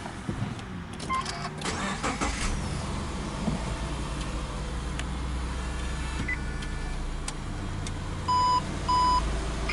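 A Subaru Legacy 2.0i's flat-four boxer engine starting and running at idle, heard from inside the cabin, with a few clicks in the first two seconds. Near the end, two short beeps from the car sound about half a second apart.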